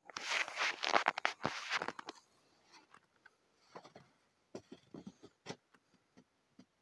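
Loud scratchy scraping for about two seconds, then a few soft, irregular crunches: footsteps in fresh snow.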